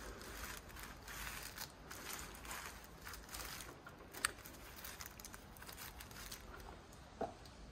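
Faint rustling and scratching of gloved fingers rubbing dark acrylic paint onto a wax-textured paper page, with a sharp tap about four seconds in.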